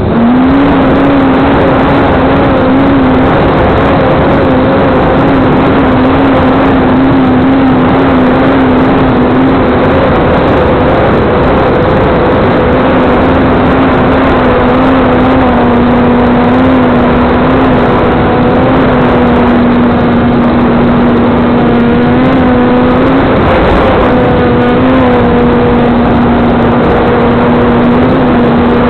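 In-flight sound from a small RC foam glider, recorded on its onboard camera: loud wind rush over the microphone with the steady hum of a small motor and propeller, which fades out briefly a couple of times.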